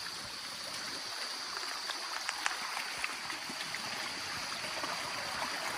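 Stream water running, a steady wash of noise with a few faint ticks.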